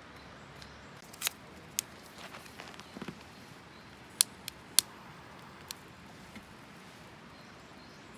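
Wood campfire crackling: a faint steady hiss broken by a few sharp, irregular pops.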